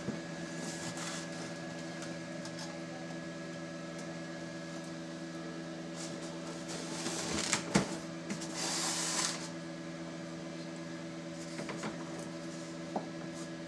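Steady multi-pitched motor hum of a running egg incubator, with a few light clicks and knocks of eggs and plastic as eggs are handled in an egg-turner rack. A brief scraping hiss comes about nine seconds in.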